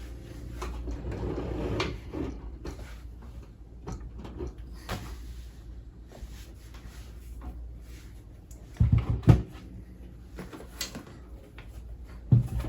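Handling noise of studio gear and cables being moved on a desk: rustling, light clicks and knocks, with a couple of heavy thumps about nine seconds in and another near the end.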